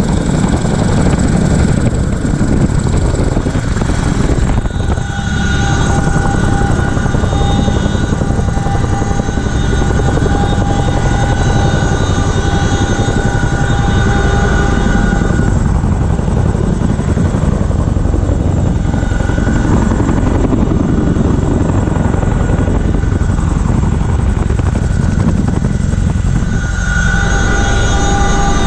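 CH-47F Chinook twin-turbine tandem-rotor helicopter in flight with a Humvee slung underneath, heard from inside the cabin: loud, steady rotor and engine noise with high transmission whines that fade and return.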